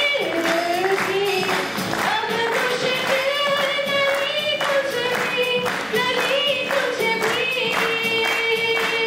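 A song: one sustained, gently wavering sung melody over music, with steady rhythmic clapping at about two claps a second.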